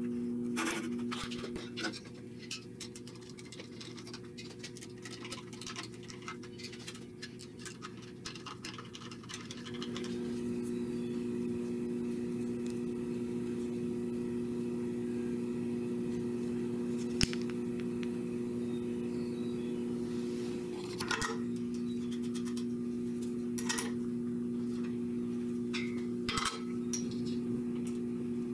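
Scattered clicks, clinks and light knocks of small steel parts, bearing wheels and screws being handled and fitted by hand, over a steady low hum. The hum drops out for several seconds about two seconds in.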